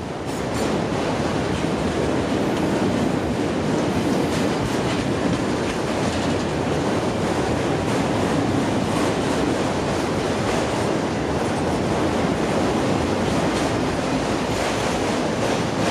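Freight train of autorack cars rolling past: steel wheels running on the rails in a steady rumble, with irregular clicking.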